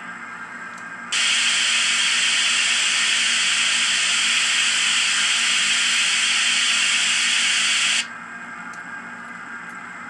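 SoundTraxx Tsunami heavy-steam sound decoder in an N scale Kato Union Pacific FEF 4-8-4, playing a sampled steam hiss through its small oval speaker. The hiss is loud and steady, starts abruptly about a second in and cuts off suddenly about seven seconds later.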